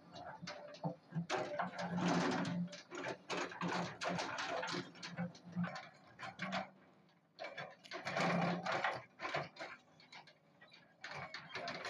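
Doosan DX225 excavator working in broken rock: irregular clattering and scraping of stones against the steel bucket, easing off briefly a little past halfway.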